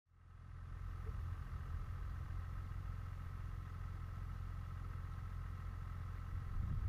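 A motor running steadily, fading in over the first second: a low rumble with a steady whine above it, growing a little louder near the end.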